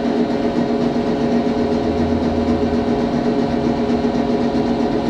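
An engine or motor running at one steady speed, a constant drone that holds the same pitch.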